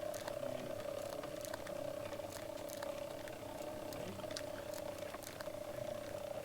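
Vichy smoking monkey automaton's mechanism running during a smoke test: a faint, steady whirring hum with scattered light clicks.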